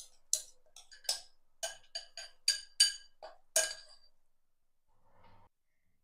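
About a dozen sharp clinks of a utensil against a kitchen vessel, each ringing briefly. They come irregularly, two or three a second, and stop about four seconds in.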